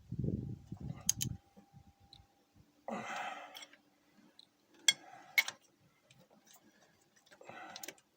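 Metal tools and engine parts being handled: a dull rumble at the start, a short scrape about three seconds in, then two sharp metallic clinks about half a second apart, and another short scrape near the end.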